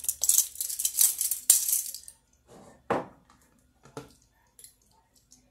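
A ring of plastic measuring spoons rattling and clicking together as they are handled, for about two seconds. Then a single knock about three seconds in and a softer click a second later.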